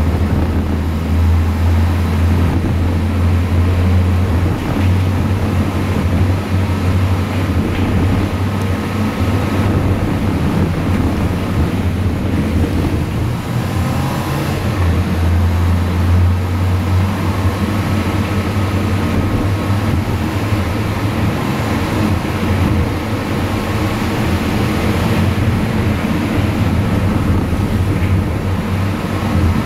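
Car engine running and tyres rolling over a rough dirt track, heard from inside the vehicle as a steady low rumble.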